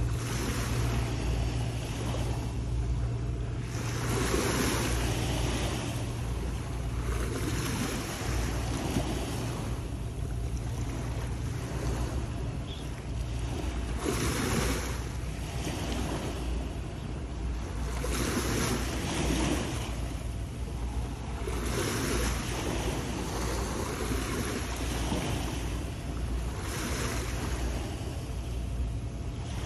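Sea waves washing against shore rocks, surging and falling back every three to four seconds, over a steady low rumble.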